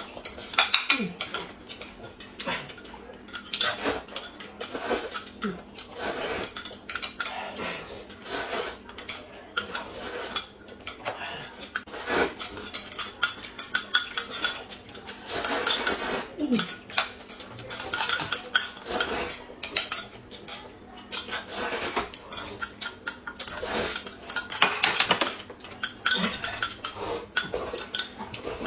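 Spoons clinking against small glass cups of corn soup and plates, many quick irregular clinks, with slurping of noodles and soup.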